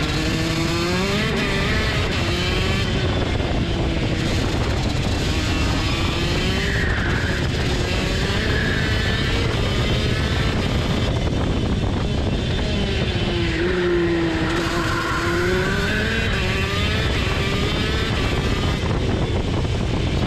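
Onboard sound of a TM KZ10C 125 cc two-stroke shifter kart engine at racing speed. The engine note dips low through a slow corner at the start and again about two-thirds of the way through, and climbs back up each time as the kart accelerates out.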